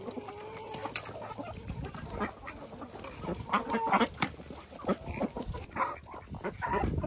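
A flock of poultry calling: many short, overlapping squawks and quacking-like calls.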